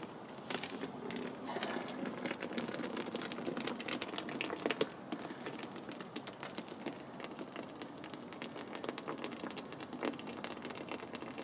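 Wet foamed concrete (aircrete) being worked with a tool: a dense run of small clicks, scrapes and wet crackles, fuller for the first few seconds.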